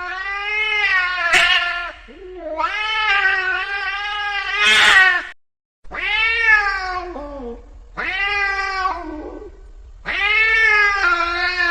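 An angry cat yowling in a string of long, drawn-out, wavering wails, each one to three seconds long with short pauses between them. A brief dead gap cuts in about halfway through.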